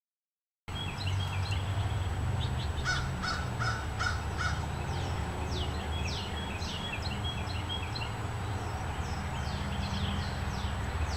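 Outdoor birdsong: many birds calling with short, quick falling chirps. About three seconds in comes a run of five evenly spaced, lower calls, over a steady low rumble.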